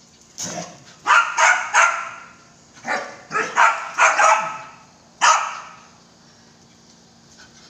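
Belgian Malinois barking: about ten loud, sharp barks in three quick bunches, stopping about five and a half seconds in.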